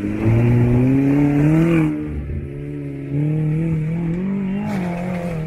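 Off-road SUV engine revving under load as the vehicle climbs over a dirt berm. The pitch rises for about two seconds and drops off, then rises and holds again from about three seconds in.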